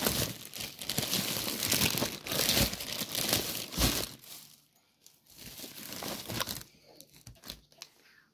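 Plastic bags and food packaging crinkling as groceries are handled. The crinkling is dense for the first four seconds or so, breaks off briefly, comes back in a shorter burst, then turns to sparse, quieter rustles near the end.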